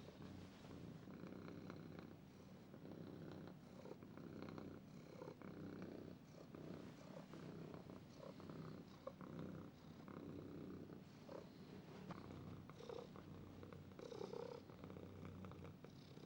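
Domestic cat purring softly and continuously.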